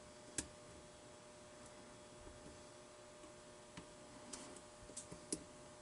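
Faint clicks of lock-picking tools working the pins of an old pin-tumbler mortise lock cylinder: one sharp click about half a second in, then a few light ticks near the end, over a quiet hum.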